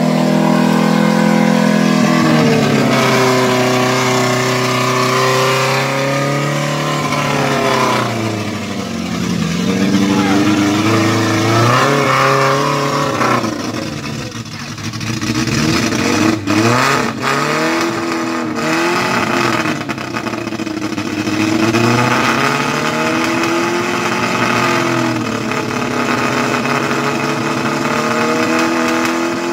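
Suzuki Jimny's engine revving hard and easing off again and again as the 4x4 struggles through deep mud, with a few sharp knocks just past halfway.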